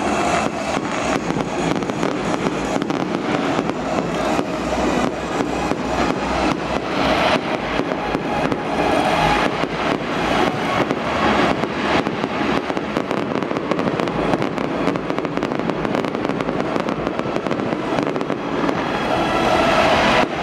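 Fireworks display over a stadium: dense, continuous crackling with many sharp bangs.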